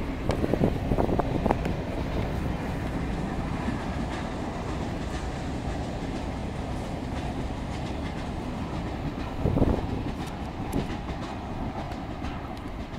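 ICF electric multiple unit local train running past on a curved track: a steady rumble with the clickety-clack of wheels over rail joints, and a few short louder knocks, a cluster about a second in and one more after about nine and a half seconds.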